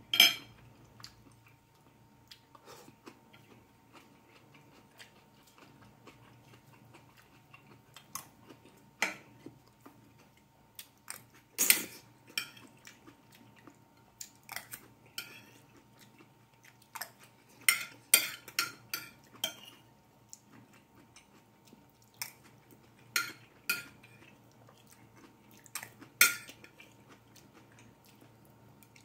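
Metal spoon clinking and scraping on a ceramic plate in scattered sharp clicks, busiest about two-thirds of the way through, with chewing between them and a faint low hum underneath.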